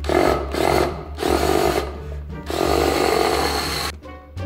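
Cordless drill boring into a wooden board, the motor running under load in several bursts with short easings of the trigger between them, stopping about four seconds in.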